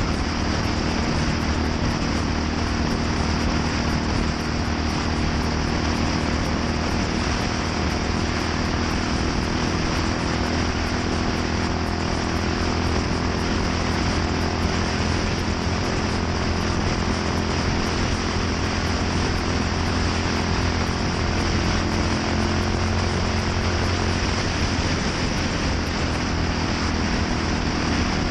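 Yamaha SR400's air-cooled single-cylinder engine running steadily at an even speed through a NitroHeads aftermarket muffler.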